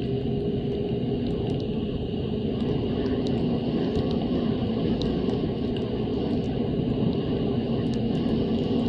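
Snowmobile engine running steadily at speed on the trail, with a steady high whine over the engine drone and scattered faint ticks.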